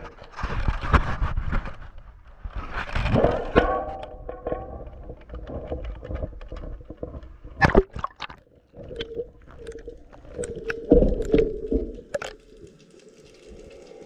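A camera being handled and lowered into seawater: bumps and rustling, then splashing and sharp knocks as it breaks the surface, changing about twelve seconds in to the quieter, muffled steady sound of the camera underwater.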